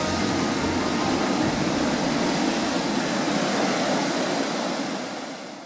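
Ocean surf breaking over coastal rocks, a steady rushing noise that fades out near the end.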